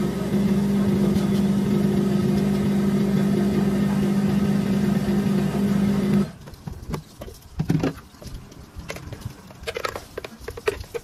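Countertop blender motor running steadily at high speed, blending an iced drink, then switched off abruptly about six seconds in. After it stops, the thick blended drink is poured from the jar into a plastic cup, with light knocks and clicks.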